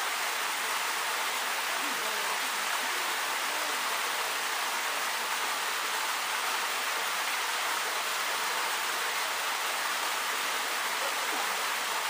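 Waterfall falling into its pool with a steady, even rush of water. It runs high after recent rains.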